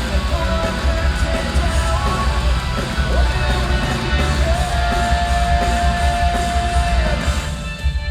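Live rock band playing loudly in an arena: distorted electric guitars, bass and drums, with one long held note in the middle. The sound thins out briefly near the end.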